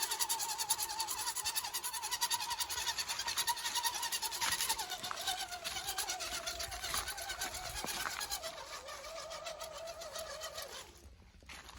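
RC rock crawler's electric motor and gears whining under power, the pitch wavering as it crawls over terrain. The whine drops lower about halfway through as the truck slows, then cuts off near the end when the throttle is released.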